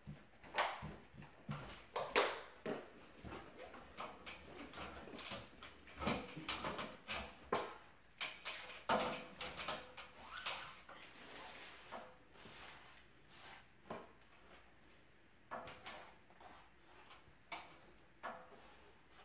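Irregular rustling, rubbing and light knocks as self-adhesive wallpaper is pressed and smoothed against a ceiling by hand and with a cloth.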